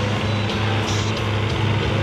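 Combine harvesters' engines running in a steady, unchanging drone.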